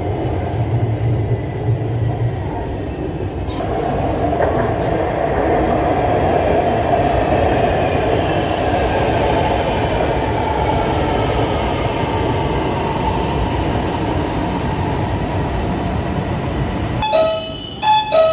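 Lahore Orange Line metro train running on its elevated track: a steady rumble of wheels and running gear, with an electric whine that falls in pitch through the middle. Near the end the rumble gives way to a few short ringing chime tones.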